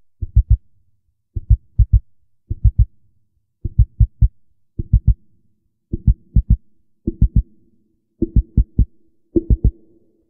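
Background music intro: quick, low drum-machine thumps in groups of about four, repeating roughly once a second like a heartbeat. A steady synth note fades in from about halfway through.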